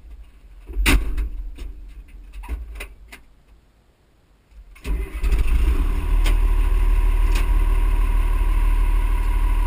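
A few clicks and knocks from the cab controls, the loudest about a second in. Then, about five seconds in, the M35A2 deuce-and-a-half's multifuel diesel engine starts and runs steadily, heard from inside the cab.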